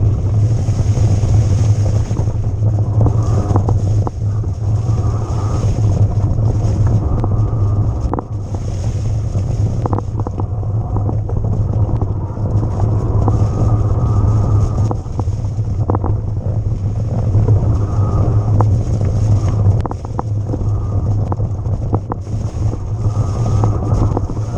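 Haibike XDURO AllMtn 2.0 electric mountain bike ridden over rough ground: a steady loud rumble of wind and tyre noise with frequent clicks and rattles from the bike, and a hiss that comes and goes.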